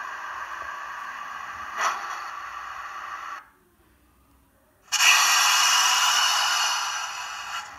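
Steady hissing noise that cuts out abruptly about three and a half seconds in, comes back suddenly and louder about a second and a half later, then fades near the end; a short click about two seconds in.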